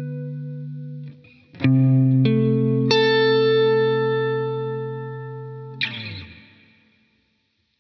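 Electric guitar played through a FLAMMA FS02 reverb pedal: a ringing chord is muted about a second in, then three chords struck in quick succession ring out together. Near the end the strings are muted with a brief scratch and the reverb tail fades away to silence.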